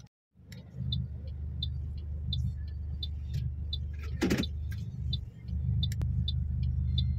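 Taxi's engine idling, heard from inside the cabin, with the indicator relay ticking steadily about three times a second. A short, louder burst of noise comes just after four seconds in.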